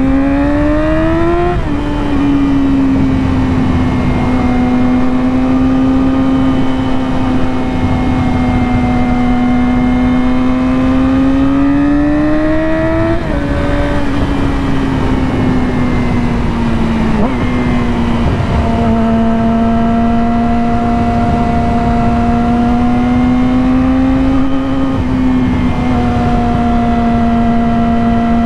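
2020 Yamaha R6's inline-four engine through an M4 slip-on exhaust with the catalytic converter deleted, heard while riding at speed. The revs climb and then drop sharply about a second and a half in, hold a nearly steady cruise, then climb and drop sharply again around the middle before settling back to a steady cruise. Wind rushes on the helmet microphone throughout.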